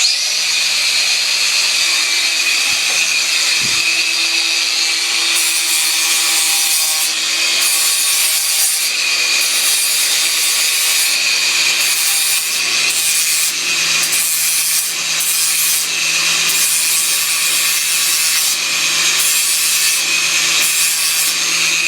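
Battery-powered grinder switched on and running continuously under load, its motor holding a steady hum beneath a harsh rasping of the disc against a workpiece.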